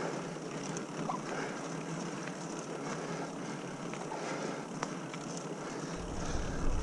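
Supercycle fat-tire mountain bike rolling along wet pavement: a steady hiss from the wide tyres on the damp surface, with a few light clicks. Wind on the microphone adds a low rumble about six seconds in.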